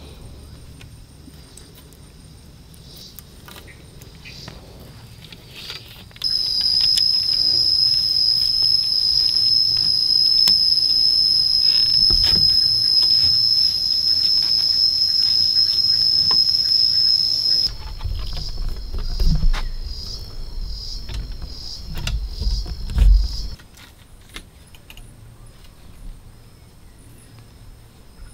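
A cicada's loud, steady, high buzz starts abruptly about six seconds in and cuts off abruptly some twelve seconds later. Light clicks and rustles of cord being tied around wooden poles run throughout, with a low rumble and a few knocks near the end.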